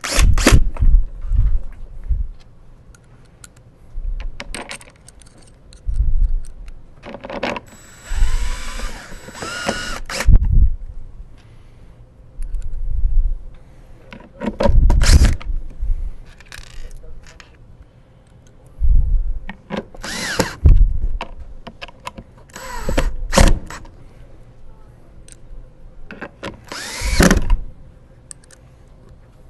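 Cordless drill driving screws into the black plastic motor head of a wet/dry vacuum, in a series of short runs with pauses between. One longer run about a third of the way in has a rising whine.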